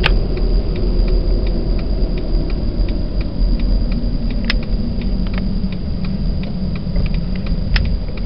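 Honda Step WGN's 2.0-litre four-cylinder engine and road noise heard from inside the cabin: a steady low rumble at low revs as the van slows. A light, even ticking about three times a second runs through it, with a few sharper clicks.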